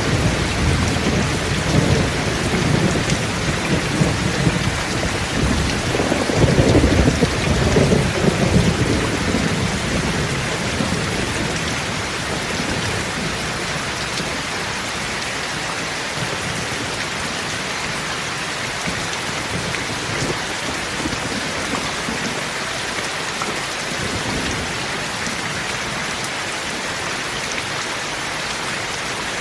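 Heavy rain pattering steadily on a tin roof, with thunder rumbling low underneath. The thunder is loudest about six to nine seconds in, then dies away to steady rain with only faint rumbles later.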